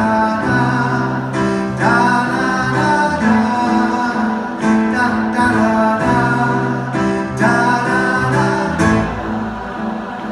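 Concert audience singing sustained notes in several stacked parts, a rehearsal of a multi-part vocal backing, over an instrument playing along; the held notes change every second or so.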